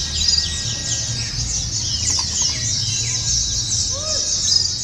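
A chorus of many white-eyes (pleci) singing at once: rapid, high-pitched chirping and twittering, overlapping without a break, over a low steady rumble. A few lower, arched whistled notes come through briefly in the second half.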